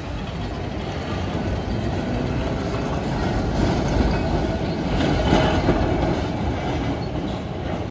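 Vintage Milan Class 1500 tram running on street rails: steel wheels rumbling and clattering as it rounds a curve and passes close. It swells louder about four seconds in and again a little later as the car goes by.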